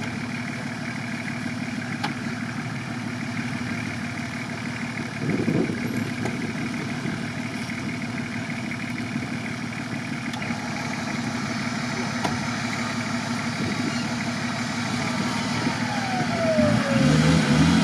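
Nissan Patrol off-roader's engine idling steadily while the truck sits stuck in the pit, swelling louder near the end.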